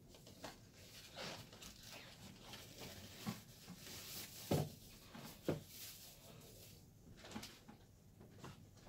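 Faint rustling and handling noises of objects being picked up and moved about, with two sharper knocks about halfway through.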